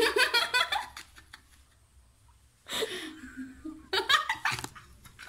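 People laughing in bursts: choppy laughter at first, a quiet pause of nearly two seconds, then a loud breathy outburst of laughter and more laughing a second later.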